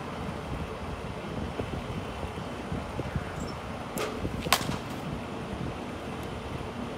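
Two sharp knocks about half a second apart, a little past halfway, in an outdoor batting cage, over a steady background hiss.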